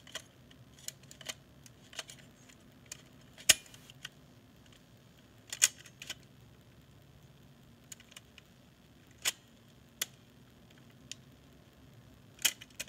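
Scattered small clicks and taps of small parts and tools being handled on a desk, about a dozen irregular sharp ticks, the loudest about three and a half seconds in.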